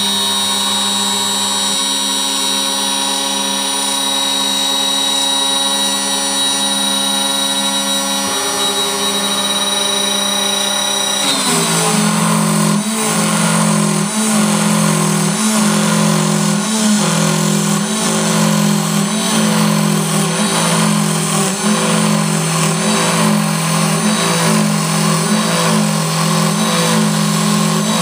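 A CNC router spindle driven by a brushless RC airplane motor whines steadily as the end mill cuts into wood. About a third of the way in, the sound changes to a lower, heavier drone that swells and dips about once every second or so as the cut goes on.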